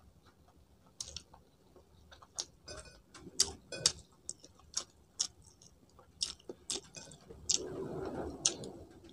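Close-up eating sounds while eating rice by hand: a dozen or so sharp, irregular mouth clicks and smacks between chews, with a longer stretch of louder chewing near the end.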